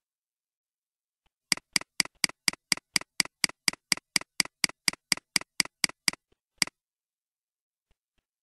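Computer mouse clicking rapidly and evenly, about four clicks a second for some four and a half seconds, scrolling down a program list, then one last click after a short pause.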